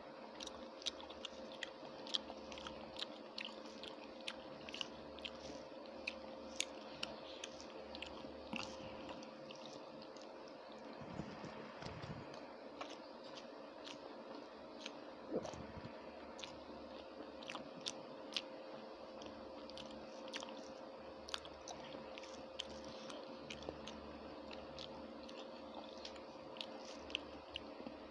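Chewing of rice and chicken curry eaten by hand, with frequent sharp mouth clicks and smacks, a few a second.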